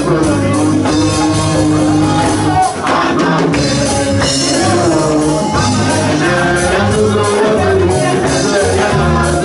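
Live gospel praise music: a woman sings lead into a microphone over keyboard, drums and a steady bass line, with backing voices.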